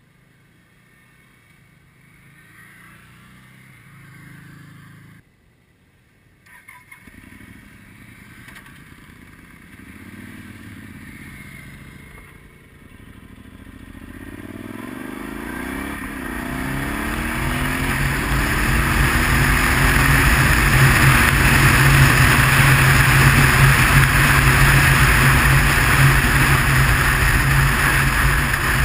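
Motorcycle pulling away and accelerating, its engine note rising through the gears. It settles into a steady drone at road speed with heavy wind rush on the bike-mounted microphone.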